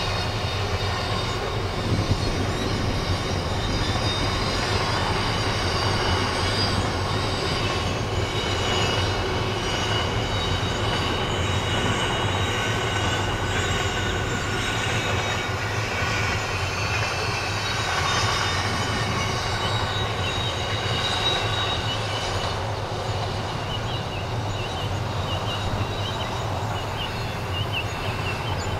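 Container wagons of a Pacific National intermodal freight train rolling past: a steady rumble of steel wheels on rail, with a high-pitched wheel squeal ringing over it that wavers and turns choppy near the end.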